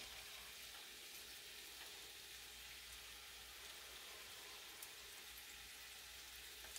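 Faint, steady sizzle of spices frying in oil in a skillet on an electric stove burner, with one small click about five seconds in.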